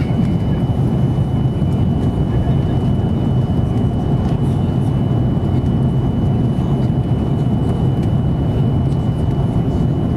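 Cabin noise inside an Airbus A330-200: a steady low rumble of engines and airflow, with a thin steady high-pitched tone above it.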